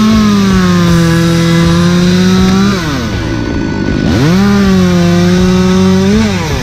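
Two-stroke chainsaw revved up to full speed twice, each time held for about two and a half seconds and then let back down to idle. Music plays faintly underneath.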